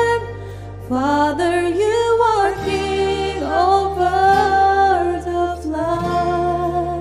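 Slow worship song: a voice singing long, held, gliding notes over sustained accompaniment chords that change a few times.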